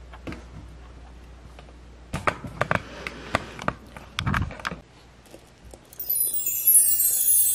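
Scattered sharp clicks and knocks of a plastic toy being handled, then a bright, high chiming jingle starting about six seconds in.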